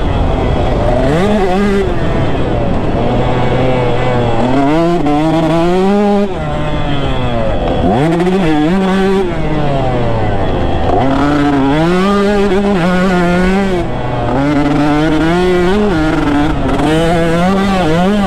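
A 2019 KTM 150 SX's single-cylinder two-stroke engine at full riding load, revving up through the gears and backing off again in repeated waves. Its pitch climbs in steps with each shift, dips sharply about eight seconds in, then picks up again. It runs on jetting the rider says isn't quite right.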